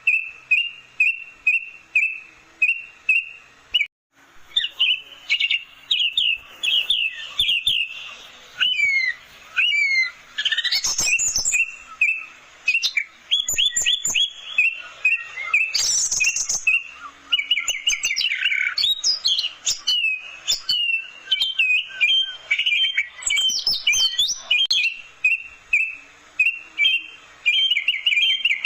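Orange-headed thrush singing: first a run of repeated short notes, about three a second, then, after a brief break about four seconds in, a fast, varied song of chirps, trills and sweeping whistles.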